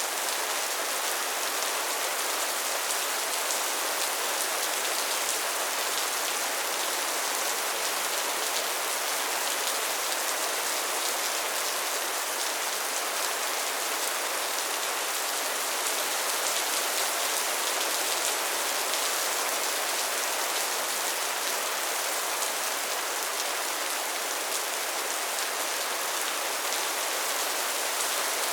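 Steady rain: an even, high hiss with little low rumble, flecked with faint ticks of individual drops.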